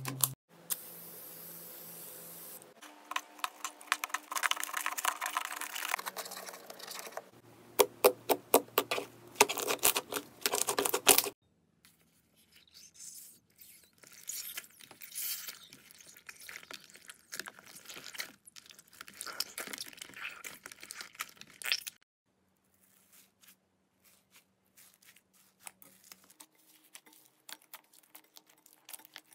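Hands squeezing, pressing and poking slime: dense runs of crackling pops and sticky squelches, loudest in the first third. The sound changes abruptly several times as the clips change, and grows quieter and sparser toward the end.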